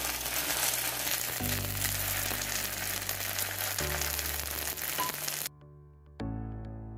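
Ghee sizzling in a nonstick pan as mini idlis fry in it, over background music with long low notes. The sizzling cuts off suddenly about five and a half seconds in, leaving only the music.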